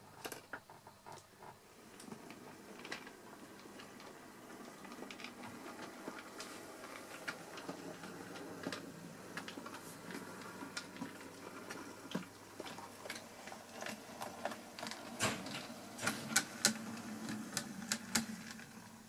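OO gauge model steam locomotive's electric motor running along the track with a steady whirr, its wheels clicking irregularly over rail joints and points, with a cluster of louder clicks near the end.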